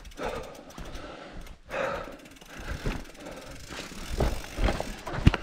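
Mountain bike rattling down a rough dirt trail: tyres on dirt and leaves with the clatter of chain and frame over bumps, and one loud, sharp knock near the end.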